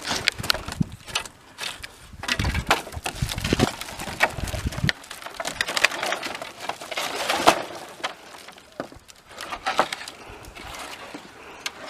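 Pieces of sawmill scrap wood knocking and clattering against each other as they are pulled from a pile, in many irregular sharp knocks, with a low rumble about two to five seconds in.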